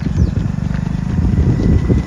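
Running footsteps of a group of runners pounding on a paved road, over a loud low rumble.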